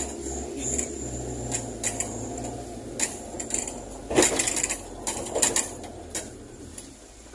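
Fiat 147 race car's engine running low and steady, heard from inside the bare cabin as the car moves off. Sharp clicks and clunks rattle over it several times, the loudest about four seconds in.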